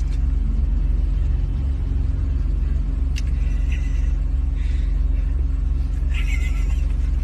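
Steady low rumble of a car's engine and road noise heard inside the cabin, with a few faint, short higher sounds in the middle and near the end.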